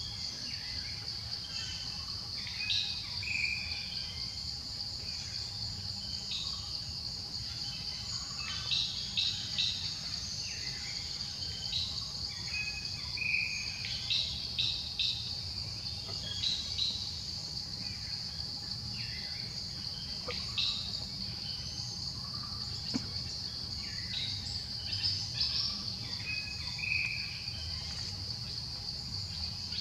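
Steady high-pitched insect drone, with short chirping calls scattered through it.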